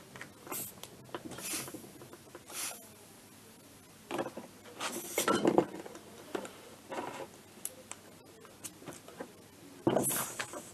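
Handling noise: light clicks, knocks and rubbing as a compressor air hose and a tyre-inflator gauge are moved about over a workbench. It is busiest about four to six seconds in and again in a short burst near the end.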